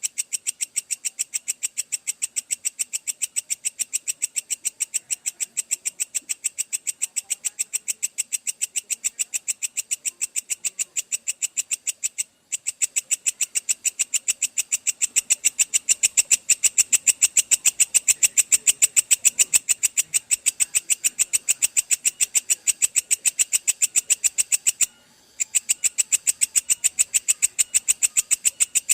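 Belalang kecek (a katydid) calling in a long, even train of rapid, sharp clicking pulses, high-pitched. The train breaks off briefly twice and grows louder about halfway through.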